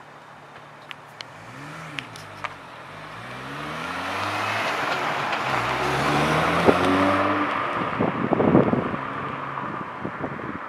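BMW 1M's twin-turbo inline-six accelerating past in a drive-by, its engine note rising and falling with the revs. It grows louder as it nears, is loudest as it passes with a rough burst of low rumble just after, then fades as the car drives away.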